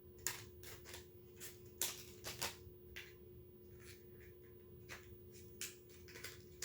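Hands opening a small plastic accessory package: scattered crinkles and clicks, a dozen or so over a few seconds.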